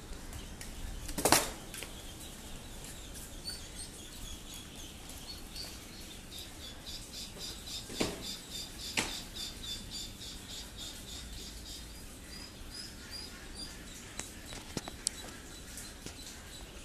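A crowd of laying-breed ducklings peeping continuously in a chorus of short, high chirps. A few sharp knocks cut through: a loud one about a second in, and two more around eight and nine seconds.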